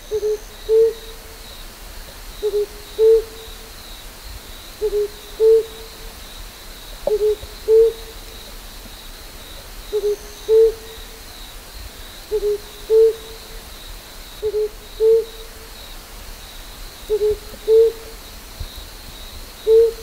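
An owl hooting in a repeated three-note phrase: two quick short low hoots and then a longer, slightly higher and louder hoot, the phrase coming about every two and a half seconds. A steady insect trill runs faintly in the background.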